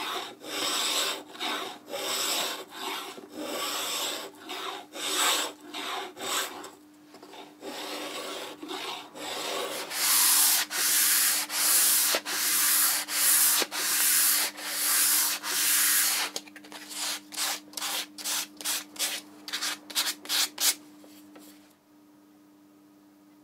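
Hand sanding of a mahogany guitar neck with a sanding block, rhythmic back-and-forth scraping strokes about one or two a second, shaping the neck's grip. About ten seconds in the strokes get longer and louder, then shorter and quicker, and they stop shortly before the end, leaving a faint steady hum.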